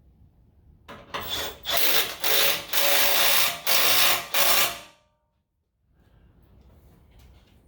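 Impact wrench running in several short bursts over about four seconds, driving bolts tight.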